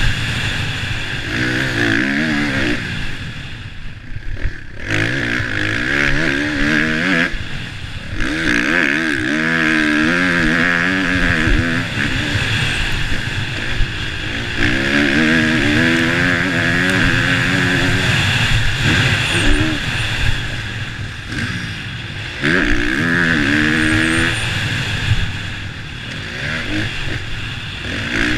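Motocross bike's engine revving hard through a lap, its note climbing and falling again and again, and dropping away several times where the throttle is closed before picking back up.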